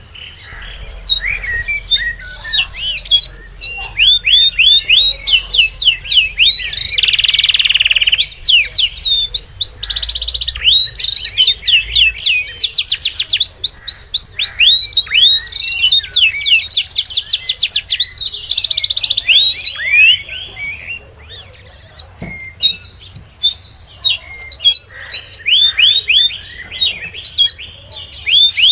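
Many small birds chirping together in quick, overlapping high chirps, with a short lull about twenty seconds in.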